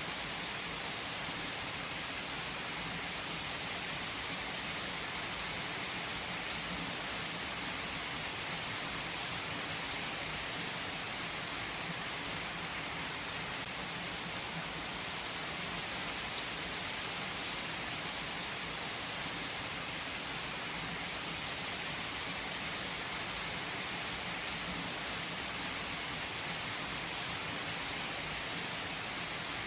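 Heavy rain falling steadily on trees and foliage, an even hiss of many drops with no letup.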